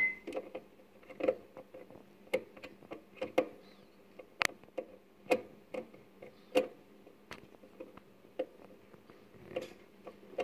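Irregular small clicks and taps from hands and a small tool working at a preamp tube socket on a guitar amp's metal chassis, with a faint steady hum underneath.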